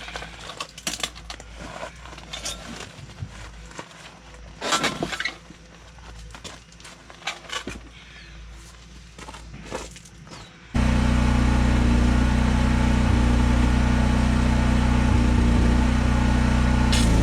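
Scattered light clicks and knocks, then, about ten seconds in, an engine running steadily cuts in abruptly and becomes the loudest sound.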